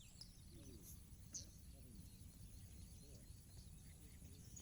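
Near silence: faint outdoor ambience with a steady high insect drone and a few faint bird chirps.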